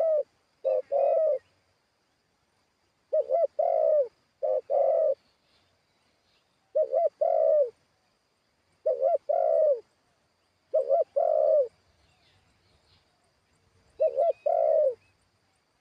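Spotted dove cooing: about seven phrases, each two or three short notes run into a longer one, repeated every couple of seconds with a longer pause near the end.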